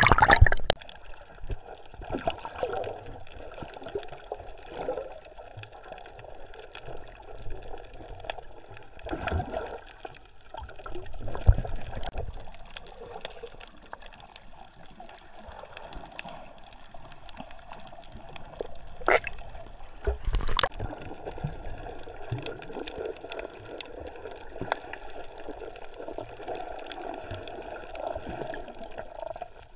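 Water gurgling and bubbling as heard by a microphone underwater, muffled and steady. A loud splash comes right at the start, and a few brief louder splashes or bubble bursts follow later on.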